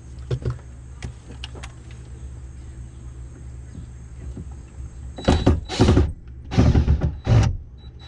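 Cordless drill driving screws out of an RV wall panel in four short bursts, starting a little past halfway. A low steady hum underlies it.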